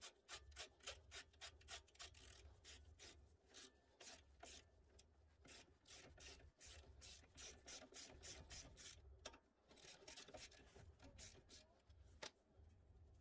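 Faint, rapid clicking and rasping of steel nuts being tightened onto the ball joint studs of a car's front lower control arm, a few clicks a second, thinning out near the end.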